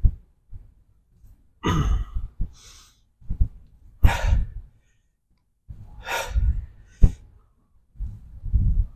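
A man's forceful breaths out, three in a row about two seconds apart, as he works through squat reps with an empty barbell, with low thuds of movement and a sharp metallic click a little past halfway.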